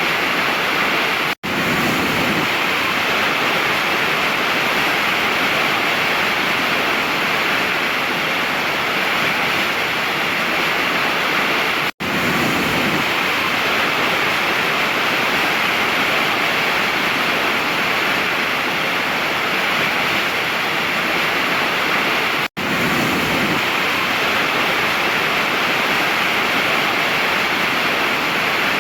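Waterfall: a steady, dense rush of falling water with no birdsong. The sound cuts out for an instant three times, about ten seconds apart, the seams of a looped recording.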